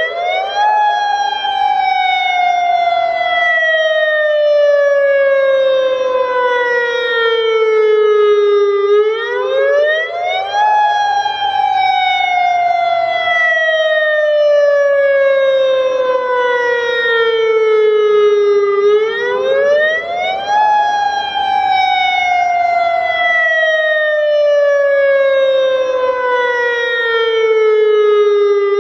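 AHAB tsunami warning siren sounding its wail during a system test: the pitch climbs quickly, then sinks slowly for several seconds. The cycle repeats about every ten seconds, three times over.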